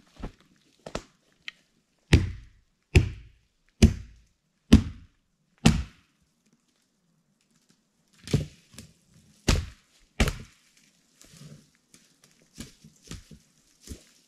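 Hatchet chopping firewood: five sharp strokes about a second apart, a pause, then three more strokes, with lighter knocks and cracks near the end.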